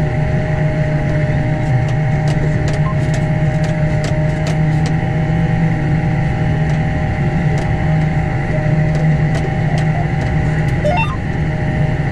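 John Deere 7630 tractor running steadily under load, a constant engine drone with a steady hum over it. Light ticks come at irregular intervals through the middle, and a short rising chirp sounds near the end.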